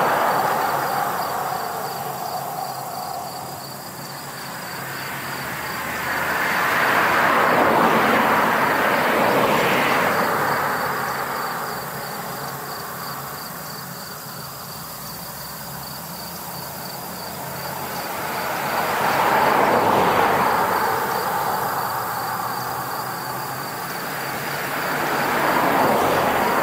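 Outdoor field ambience: a rushing noise swells and fades every six seconds or so, with an insect's steady, high-pitched pulsing chirp underneath.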